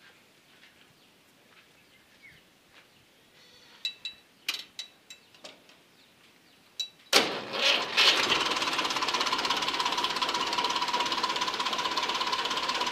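Massey Ferguson 240 tractor's three-cylinder diesel engine being started: a few light clicks, then about seven seconds in it cranks and catches within a second and settles into steady running.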